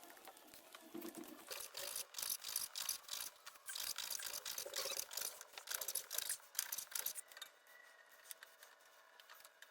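Knife sawing through a long French baguette in quick back-and-forth strokes, stopping about seven seconds in.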